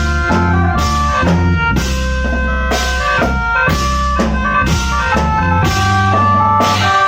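Khaen band music: held chords from khaen mouth organs over a steady drum beat of about two strikes a second, with a strong low bass.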